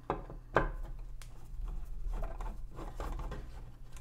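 Screwdriver working a small screw out of a metal tape-player chassis: a sharp click about half a second in, a lighter one soon after, then faint scratching and ticking as the screw is turned out.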